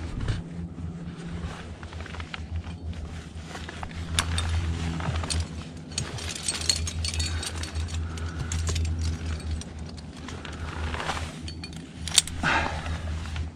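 Ice-climbing gear at work: scattered sharp clicks and metallic clinks of ice axes, crampons and carabiners, with a carabiner being clipped near the end, over a steady low rumble.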